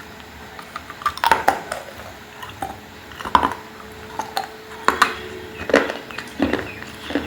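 Cutlery clinking and scraping against a pot in an irregular string of sharp knocks, roughly one a second, during eating.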